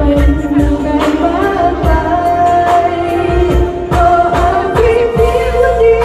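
A woman singing a Thai pop song live into a microphone over amplified backing music with a steady drum beat, heard through the stage PA.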